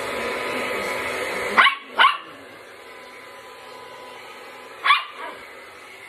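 A hair dryer runs, then stops about one and a half seconds in. A small dog then barks twice in quick succession, and once more about five seconds in.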